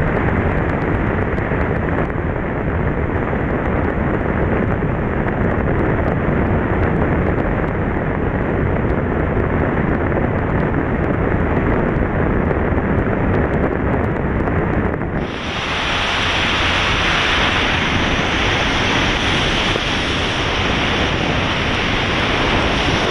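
Wind rushing over the microphone of a camera on a motorcycle riding at speed in the rain on a wet road, a steady loud rumble. About fifteen seconds in it changes abruptly to a brighter, hissier noise.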